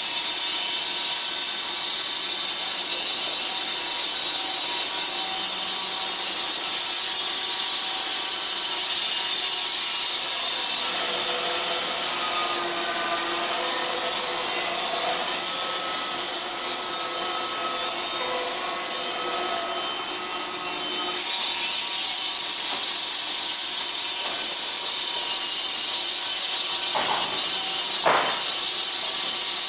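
Band sawmill blade cutting through a log: a loud, steady, high-pitched hiss of sawing, with two short knocks near the end.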